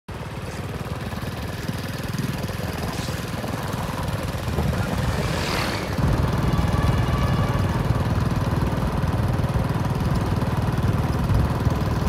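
An engine running steadily, getting louder about six seconds in.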